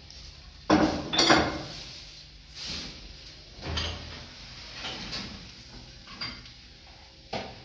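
A series of short scrapes and knocks, about six in all, the loudest a little under a second in.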